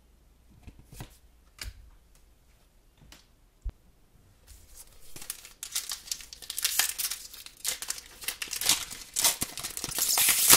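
A few light clicks, then from about halfway a foil trading-card booster-pack wrapper crinkling and tearing as it is ripped open, loudest near the end.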